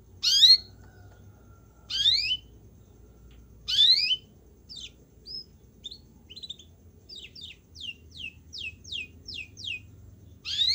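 Yellow domestic canary singing: loud upward-sweeping whistles about every two seconds, then a run of quick falling notes, about three a second, before one more loud sweep near the end.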